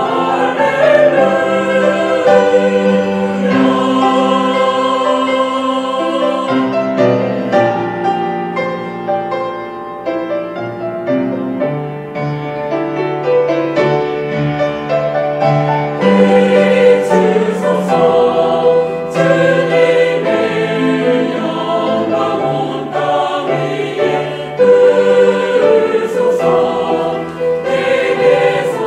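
Mixed church choir singing a hymn in Korean, accompanied by piano and cello.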